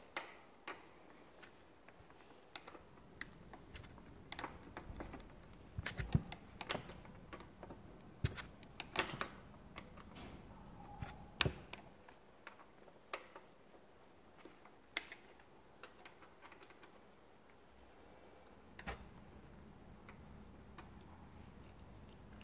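Irregular small metallic clicks and taps of a 5 mm Allen key being turned and re-seated in the mounting bolt of a motorcycle steering damper as the bolt is tightened by hand.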